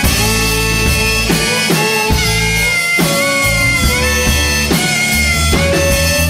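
Blues-rock band playing live between verses: a held, bending lead melody over bass guitar and drums.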